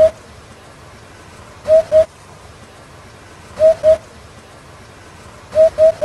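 Eurasian hoopoe singing its hooting song: short, low 'hoop' notes given in quick pairs about every two seconds, with a group of three near the end.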